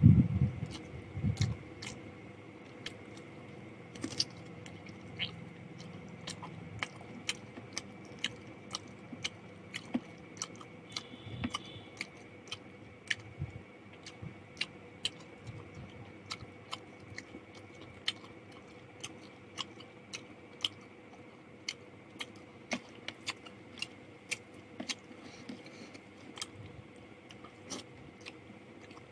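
Close-miked chewing and mouth sounds of someone eating chicken curry with rice and fried potatoes: a run of short wet clicks and smacks, a few every second.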